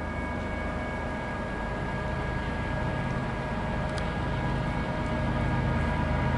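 Approaching Union Pacific freight train led by a GE ES44AC diesel locomotive: a low engine and rail rumble that grows slowly louder as it nears, with several steady high tones held over it.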